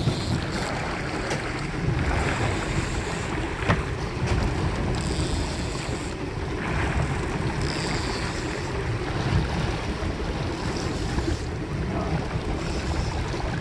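Wind buffeting the microphone over the steady rush of water and the low rumble of a moving fishing boat, with one sharp tick about four seconds in.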